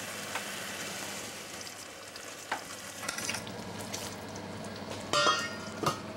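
Tomato sauce with rolled beef braciole cooking in a stainless steel pot, a steady sizzle and bubble. About five seconds in, a metal pot lid clanks down onto the pot with a short ring.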